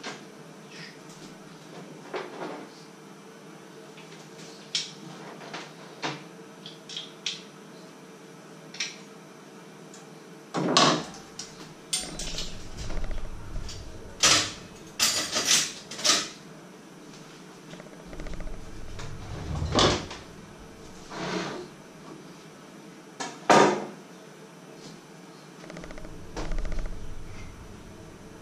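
Kitchen handling sounds: scattered clicks, knocks and clatters of utensils, a cutting board, pots and cupboard doors, with a denser run of louder knocks and low thuds through the middle.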